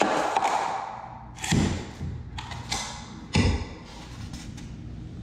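A laminate flooring plank knocking on a bare concrete subfloor as it is laid down and stood up against a door jamb: three dull thuds, each about one and a half to two seconds apart.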